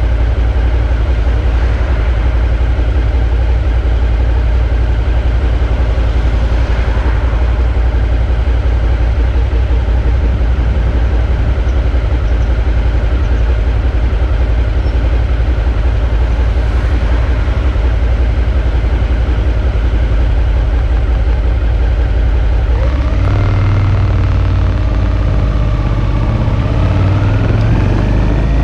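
Suzuki V-Strom 650's V-twin engine running steadily at low revs. About three-quarters of the way through it picks up, its pitch rising as the bike accelerates, and it dips briefly right at the end.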